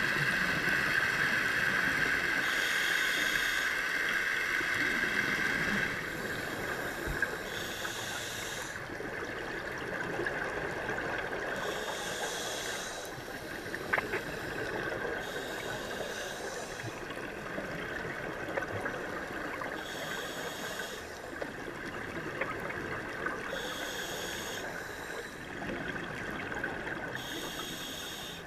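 A scuba diver's regulator breathing heard underwater: exhaled bubbles burbling out about every four seconds, over a steady high-pitched whine that drops in level about six seconds in.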